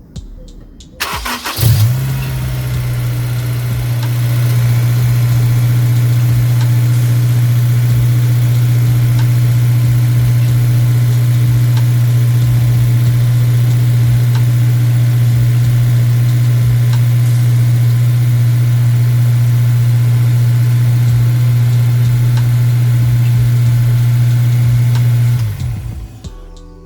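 Honda S2000's four-cylinder engine starting about a second in and then idling steadily, running on its new drive belt and freshly re-bearinged tensioner and deflection pulleys; it is switched off near the end.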